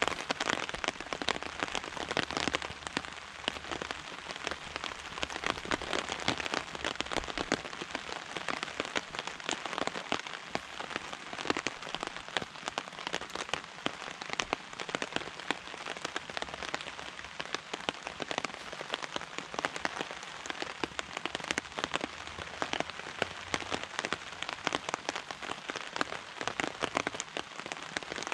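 Steady rain falling, a dense, even hiss made of countless small drop hits.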